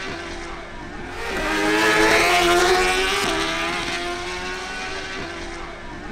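Two sport motorcycles, a Suzuki GSX-R1000 and a Honda CBR1000RR, accelerating flat out on a drag strip. Their inline-four engines rise in pitch and drop back at each upshift, about every two seconds. The sound is loudest about two seconds in.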